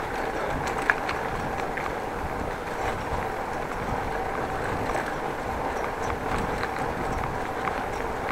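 Steady rolling noise of a bicycle riding along a city street, with a few faint clicks and rattles, one about a second in.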